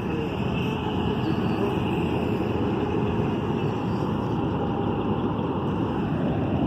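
Volantex Vector 28 RC boat's electric motor running with a steady high whine over a constant rushing noise.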